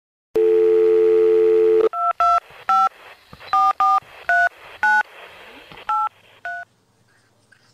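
A telephone dial tone held for about a second and a half, then touch-tone keypad beeps as a number is dialled: about nine short beeps at an uneven pace.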